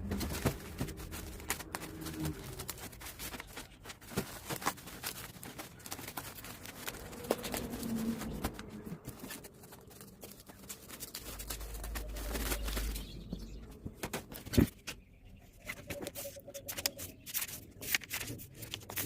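Book packaging being handled and opened: irregular rustling, crinkling and sharp clicks.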